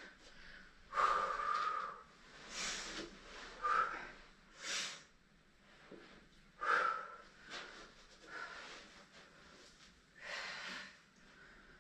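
A person breathing hard from exertion during bodyweight lateral lunges, with short forceful exhales every second or two.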